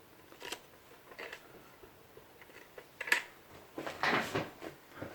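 Light clicks and rustling of hands handling gear at a workbench, with a sharper click about three seconds in and a brief scraping rustle near four seconds.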